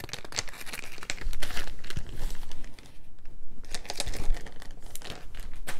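Packaging crinkling and rustling as it is handled and opened, a run of irregular crackles with a short lull about halfway through.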